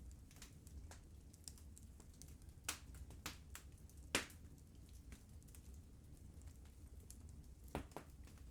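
Wood fire crackling in a fireplace: scattered sharp pops and snaps, the loudest about four seconds in, over a low steady rumble.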